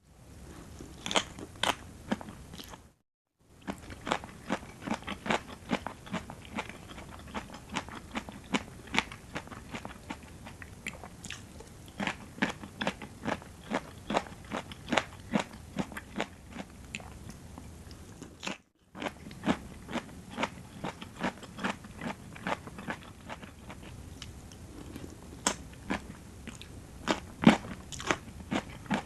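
Close-miked chewing and biting of a rice noodle salad with crunchy raw vegetables: a steady run of crisp crunches, several a second, broken twice by a moment of dead silence.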